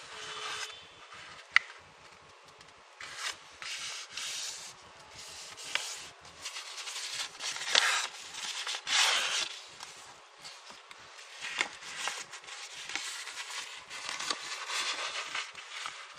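A square sheet of origami paper rustling and rubbing under the fingers as it is folded and its creases pressed flat, coming in uneven bursts with a few sharp clicks of the paper.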